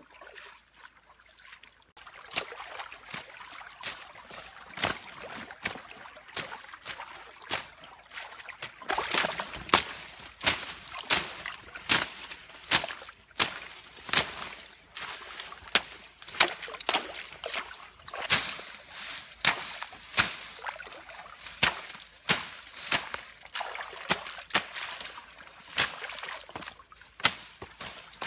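Water sloshing and trickling with repeated sharp splashes, about one to two a second, starting about a third of the way in.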